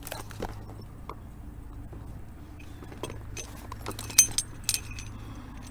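Scattered light metallic clinks and clicks of fishing gear being handled aboard a kayak, coming thicker and sharper a little past the middle, with one loudest clink.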